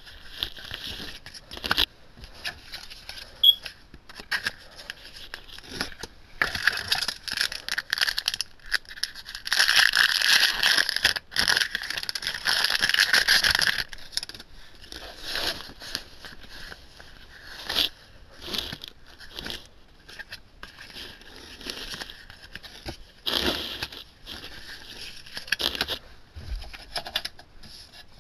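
Yu-Gi-Oh! trading cards being handled by hand: cards slid, flicked and tapped down one after another, with a longer stretch of dense rustling about ten seconds in.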